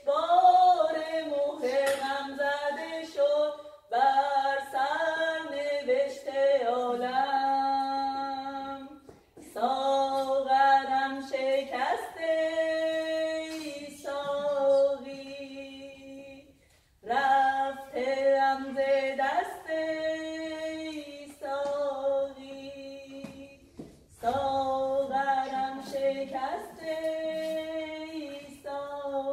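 A woman singing solo without accompaniment, in four long phrases that each end on held notes, with short breaths between them.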